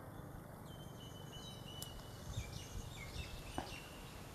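Faint, high whistled bird calls over a low outdoor background: a held note for about two seconds, then shorter gliding notes. A soft click about three and a half seconds in.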